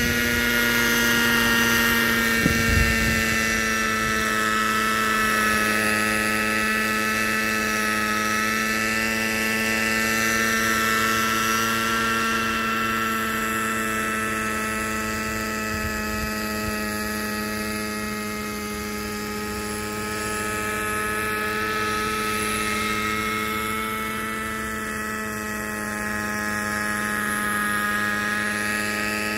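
Kyosho Concept 30 SR-X radio-controlled helicopter in flight: its small two-stroke glow engine runs at a steady pitch with the rotors spinning, swelling and fading gently as the helicopter moves about. Brief wind rumble on the microphone about two seconds in.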